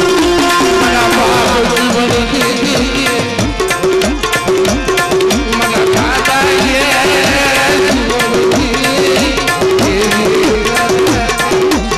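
Gujarati dakla folk-devotional music: a steady, loud drum beat under a short melodic phrase that keeps repeating.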